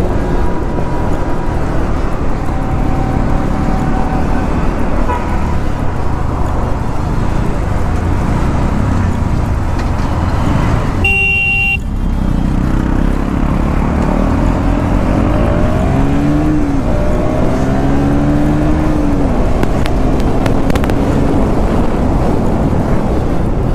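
KTM Duke 200's single-cylinder engine running under steady wind rush on the microphone while riding in traffic. About halfway through a vehicle horn toots briefly, and after it the engine's pitch rises and falls as it revs.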